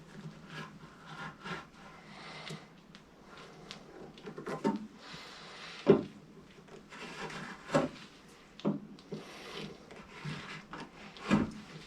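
Red oak workpiece handled on a workbench: rubbing and scraping strokes on the wood with several sharp wood-on-wood knocks, the loudest about six, eight and eleven seconds in, as the tenon shoulders are marked out.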